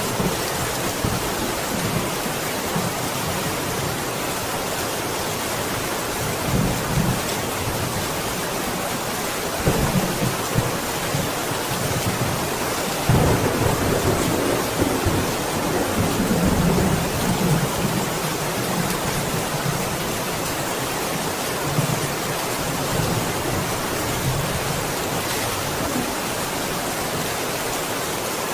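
Steady, heavy rain falling, with low rolls of thunder rumbling several times, the longest and loudest about halfway through.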